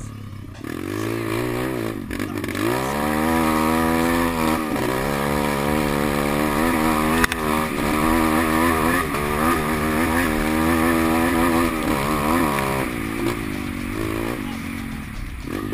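150 cc pit bike's single-cylinder four-stroke engine under way, revving up hard about a second in and again near two seconds, then held high with the pitch rising and falling as the throttle works. It eases off after about thirteen seconds. A single sharp click comes about seven seconds in.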